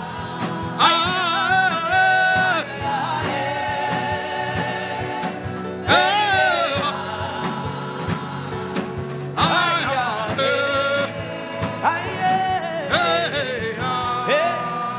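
Gospel worship chanting: a voice sings long, wavering, drawn-out phrases with short breaths between them, over a steady held accompaniment.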